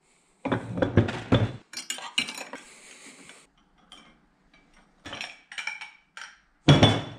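Cast-iron dumbbell plates and steel handles clinking and clanking together as the dumbbells are picked up and handled, the loudest clanks in the first second and a half. Lighter scraping and scattered clicks of a thin wire coat hanger being threaded through the dumbbells follow.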